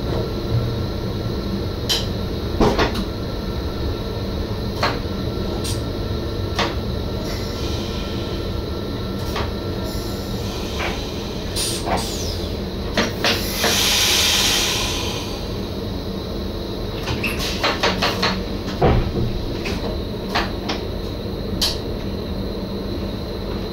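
An NS SGM Sprinter electric train running, heard from its driver's cab: a steady running rumble with many scattered sharp clicks and knocks, and a short hiss lasting about a second and a half near the middle.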